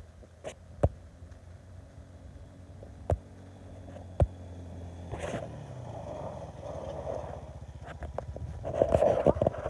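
ATV engine running at a distance, growing louder as it comes closer over the second half. A few sharp clicks sound over it in the first few seconds.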